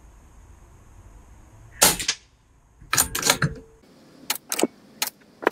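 Air rifle shots: one sharp crack about two seconds in, a cluster of cracks a second later, then a quick run of sharp clicks in the last second and a half.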